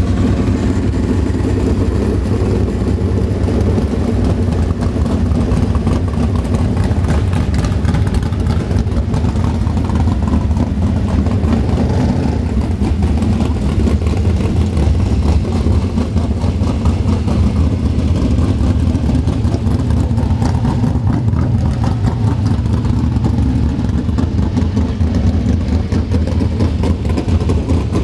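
Engines running with a steady, unchanging drone.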